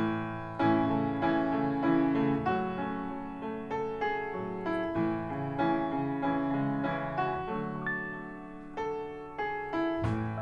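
Recorded piano music: slow chords and single notes, each fading after it is struck, played back over Harbeth SHL5+ hi-fi loudspeakers and picked up in the room. The music starts suddenly at the very beginning.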